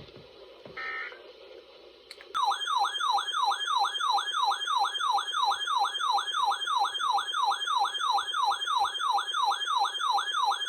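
Emergency Alert System broadcast: a short burst of SAME digital data tones about a second in, then the attention signal, a loud siren-like warbling tone sweeping up and down nearly three times a second, announcing the next warning.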